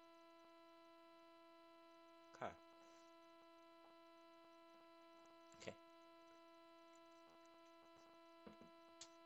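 Near silence: a steady electrical hum, with two brief faint noises about two and a half and five and a half seconds in.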